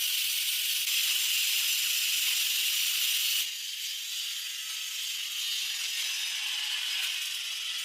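Power saw ripping timber lengthwise, a steady high-pitched rushing noise of the blade in the wood that drops somewhat in level about three and a half seconds in.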